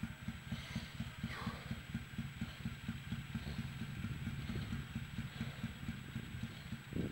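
Motorcycle engine running at a low, steady road speed, its exhaust beating in a fast, even train of low thuds. There is one louder knock near the end.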